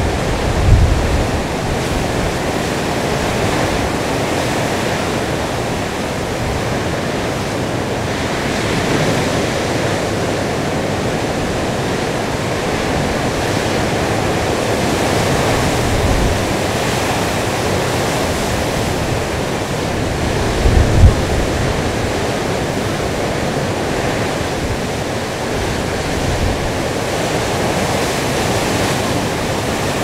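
Rough sea breaking on the shore with wind: a steady rush of surf, broken by a few low thumps of wave impacts or gusts on the microphone, near the start, about halfway and most strongly about two-thirds through.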